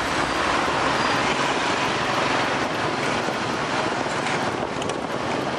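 Steady rushing street noise heard while moving through busy city streets: motorbike traffic and wind on the microphone.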